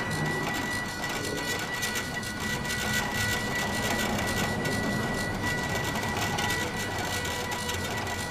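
CNC pen plotter's stepper motors running as they drive the X and Y axes to trace a drawing, giving a steady high whine over a busy buzzing texture.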